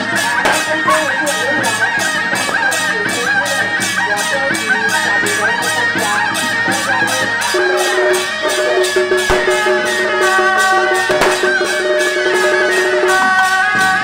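Traditional temple-procession music: a fast, even percussion beat of about four strikes a second under a wavering, shrill reed-horn melody. About seven and a half seconds in, the melody gives way to steady held notes.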